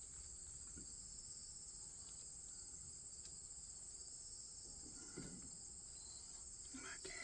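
Steady high-pitched chirring of crickets, with a couple of faint knocks about five and seven seconds in.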